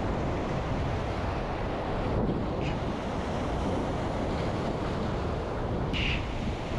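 Surf breaking and washing over ocean rocks, with onshore wind buffeting the microphone; a brief hiss about six seconds in.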